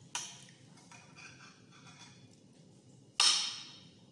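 Spoon and fork clinking against a plate while eating: a sharp clink just after the start and a louder, ringing one about three seconds in, with faint scraping of cutlery on the plate between.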